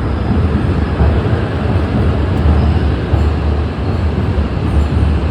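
E6 series Komachi Shinkansen train arriving at the platform: a steady, loud low rumble of the train running in.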